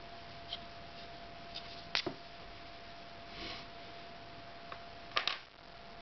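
Clicks and light handling noise as a Cold Steel Bird & Trout knife is drawn from its black sheath and handled: a sharp double click about two seconds in, a soft rustle, and another sharp double click near the end. A faint steady tone hums underneath.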